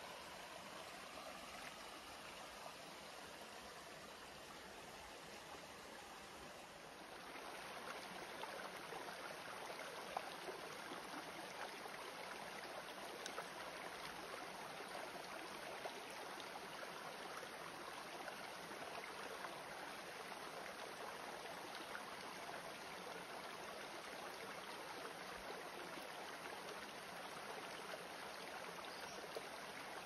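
Running water, a steady rush that grows a little louder about seven seconds in.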